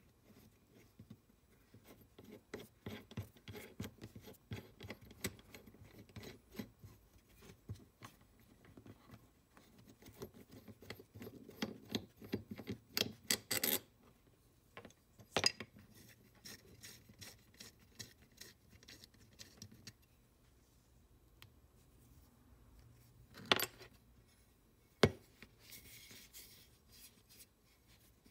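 Hand disassembly of a Stanley No. 220 cast-iron block plane: steady light clicking and metal-on-metal rubbing as the knurled adjuster screw is worked out, then a few sharper clinks of parts being handled and set down.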